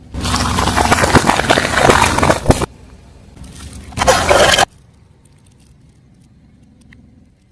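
Things crunching and crackling as a car tyre rolls over and crushes them: a long burst of about two and a half seconds full of sharp cracks, then a shorter burst about four seconds in that cuts off suddenly.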